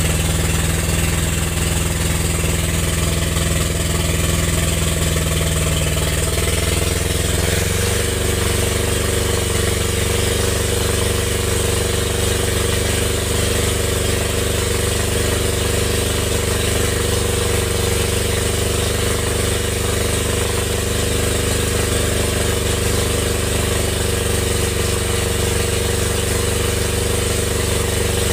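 Diesel engine of a wheeled logging skidder running steadily, then rising to higher revs about seven seconds in and holding there as it winches a log up by cable.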